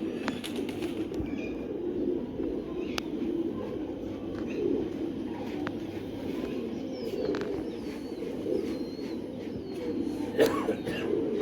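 A flock of domestic pigeons cooing together, a steady overlapping murmur of low coos, with scattered light clicks and a sharp knock about ten seconds in.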